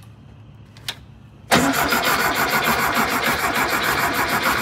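The starter of a VW Thing's air-cooled flat-four engine cranking it in an even, rapid rhythm without the engine catching, after a short click about a second in.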